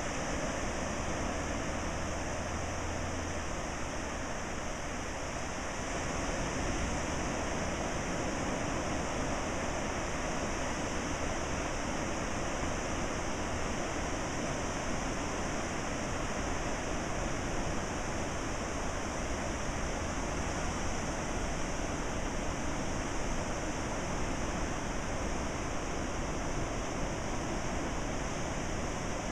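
Ocean surf breaking along a sandy beach: a steady, unbroken wash of waves.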